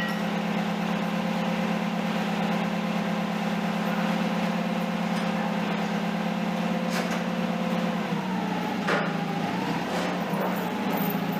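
Truck engine running steadily, its pitch shifting and wavering about eight seconds in as the engine speed changes.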